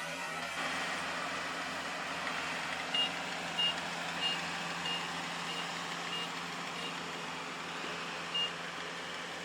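Combine harvester running steadily, with its short, high-pitched warning beeper sounding seven times about two-thirds of a second apart, as when the machine reverses, then once more near the end.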